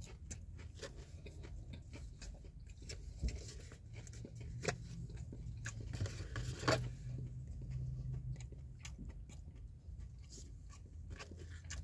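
A person eating a chicken wing: quiet chewing and biting with small crunches and mouth clicks, and a couple of louder clicks around the middle. A faint low hum runs underneath.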